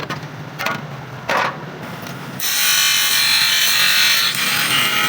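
A few light knocks, then about two and a half seconds in a power tool starts working against a workpiece with a loud, steady, hissing grind that stops near the end.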